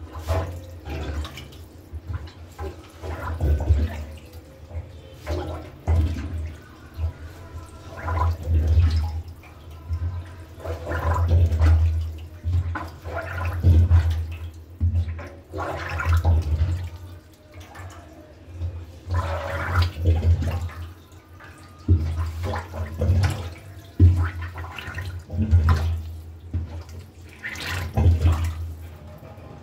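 Rubber cup plunger pumped repeatedly over a blocked kitchen sink drain in standing water, with a low surge of water pushed and sucked through the drain on each stroke, about every second or two.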